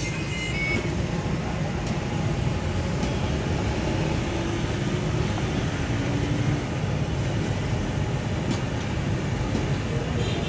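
Steady low mechanical rumble, with a few faint clicks.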